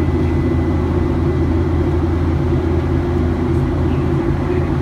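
Steady, even drone of the jet engines and rushing airflow heard inside the cabin of a Southwest Airlines Boeing 737-800 in flight, a low hum of several held tones under a wide hiss.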